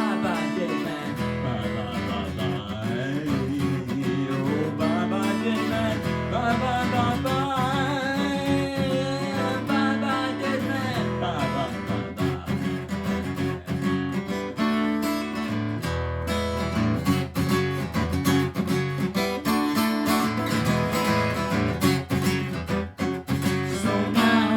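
Instrumental music: strummed acoustic guitar over a steady low accompaniment, with a wavering, bending melody line over it for several seconds early on.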